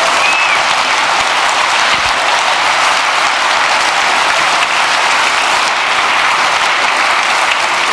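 Audience applauding steadily, with a short whistle just after the start.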